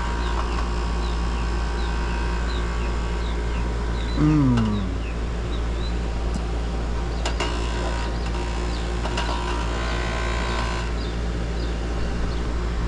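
Outdoor air-conditioning condensing unit running with a steady electrical hum. Small birds chirp about twice a second over it, and a short, louder sound falls in pitch about four seconds in.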